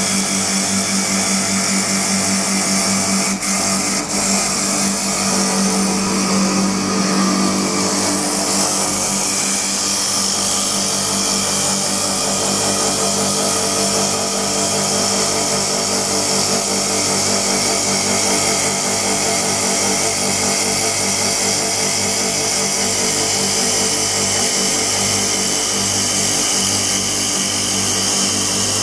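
CNC wood lathe running, turning a wooden workpiece: a steady motor hum with a high, steady hiss of cutting that strengthens about eight seconds in.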